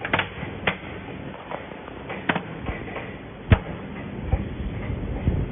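Sharp clicks and knocks of hands handling the plastic and metal hardware on the back of an LED display cabinet: locks, latches and a power connector. About four distinct clicks, the loudest about three and a half seconds in, with duller knocks near the end.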